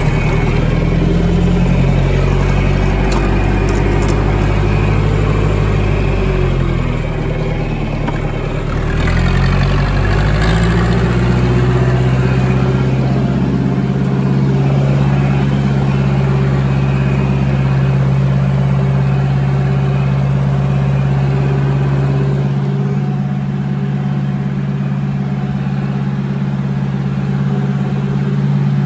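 John Deere 3020's four-cylinder diesel engine running under load in second gear while the tractor drags a fallen tree trunk on a chain. Its pitch dips about a third of the way in, rises back, then holds steady.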